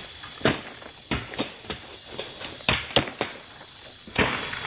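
A steady high-pitched insect drone with a run of sharp, irregular knocks of tools striking wood, about two a second.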